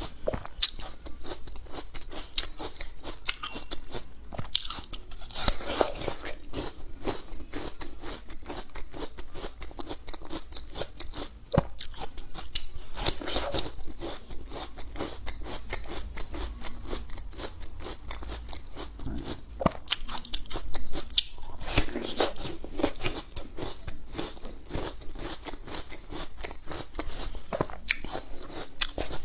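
Close-miked crunching and chewing of raw yacon, a crisp root with lots of juice, with a few louder bites.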